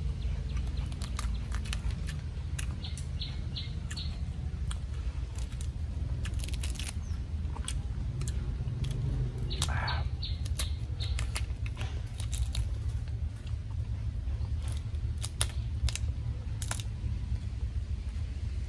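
Shell of a large boiled tiger prawn crackling and snapping as it is peeled by hand, in scattered sharp clicks over a steady low background rumble. A few faint bird chirps come through in places.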